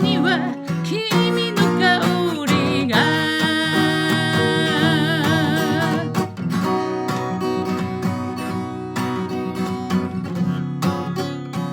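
Acoustic guitar strummed as accompaniment to a solo singing voice. The voice ends its phrase on a long held note with vibrato about halfway through, then the guitar strums on alone.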